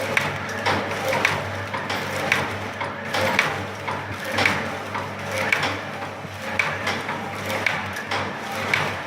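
Four-side-seal granule sachet filling and packing machine running, with a steady electric hum and a repeating clack cycle of about one strong clack a second and a lighter one between, as each sachet is sealed and cut.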